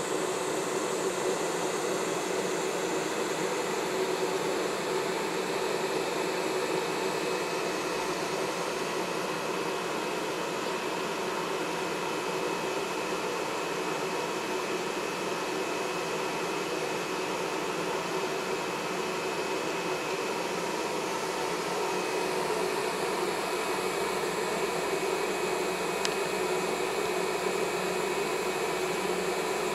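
EF65 electric locomotive standing with its cooling blowers running: a steady fan-like whir with a constant humming tone.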